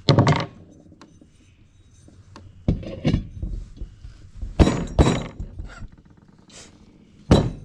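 Metal knocks and clatter of a mini bike's centrifugal clutch being fitted back onto the engine shaft, several separate clunks with short pauses between them.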